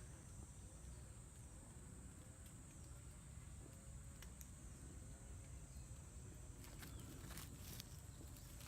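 Faint outdoor ambience: a steady, high-pitched insect drone, with a few soft clicks near the end.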